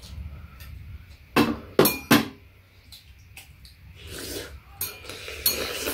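Metal chopsticks and spoons clinking against bowls and a metal tray during a meal: sharp clinks, three loudest close together about one and a half seconds in, a few more near the end.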